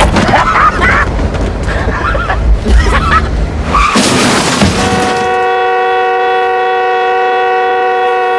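A car crash: a heavy rumble with sharp bangs and crunches, then from about five seconds in a car horn sounding continuously as one steady, unbroken chord.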